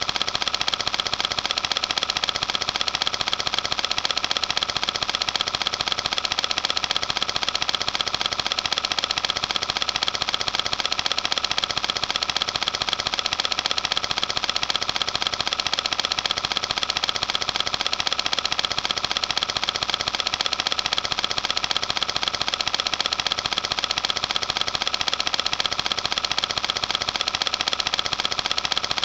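Cine film projector running: a steady, rapid mechanical clatter of the film being pulled through the gate, unbroken throughout.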